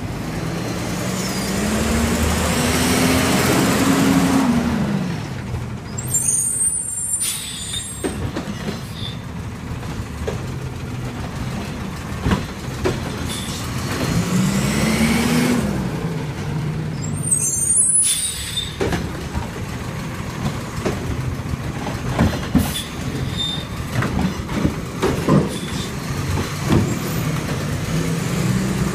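Side-loading garbage truck emptying carts: the engine revs up and back down twice as the hydraulic arm works, and each time it is followed by a sharp hiss of air brakes. Scattered knocks and bangs follow near the end.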